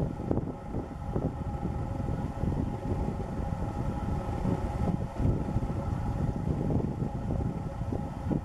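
Wind buffeting the microphone, an uneven low rumble that gusts and dips, with a faint steady hum above it.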